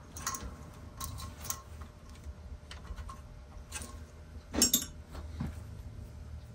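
Scattered small clicks and light rattles of broken, brittle ABS plastic inner-bezel pieces being worked loose by hand from an iMac G3's CRT frame; the loudest is a quick double click a little over halfway through.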